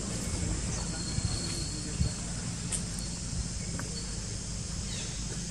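Steady insect chirring outdoors with a thin high tone, over a low rumble. A couple of faint knocks come about one and two seconds in.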